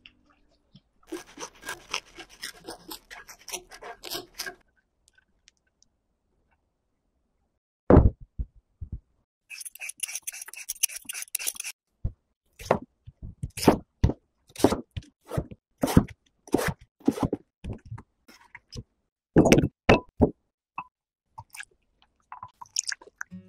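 Kitchen prep sounds with no music: crisp crackling for the first few seconds, a heavy thump about eight seconds in, a short crinkly rustle, then a run of irregular knocks and thuds from raw potatoes being cut and handled on a wooden cutting board.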